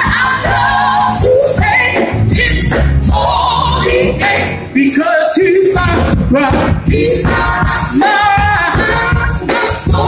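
Live gospel music: voices singing over loud instrumental accompaniment with a heavy low end.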